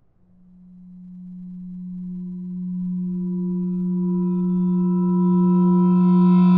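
A single sustained low tone, one held pitch, that swells steadily louder and gains brighter overtones as it builds: a film-score drone rising in tension.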